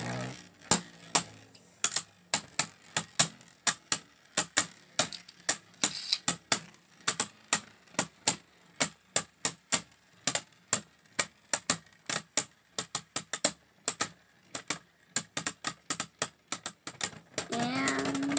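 Two Beyblade spinning tops clashing over and over in a plastic Beyblade stadium: a long, irregular run of sharp clacks, about three a second, as the tops hit each other and the stadium wall.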